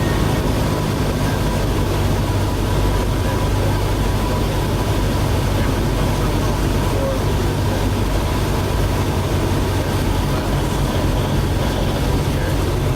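Light airplane's engine droning steadily in flight, heard from inside the cabin.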